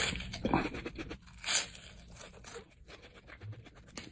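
Crunchy bites into a rice cake topped with raspberry jalapeno, a few crackly crunches with the loudest about a second and a half in, then quieter chewing.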